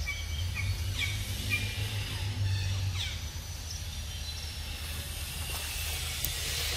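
Outdoor forest ambience: a run of short high chirps during the first three seconds over a steady high hiss and a low rumble.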